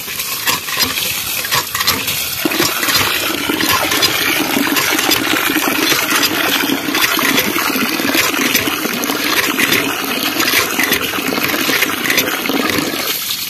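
Rice being washed by hand: a steady rush of water running and sloshing in the vessel.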